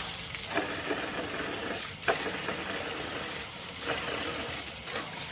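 Water pouring steadily from a plastic tap into a part-filled plastic bucket, splashing, with a sharper knock about two seconds in.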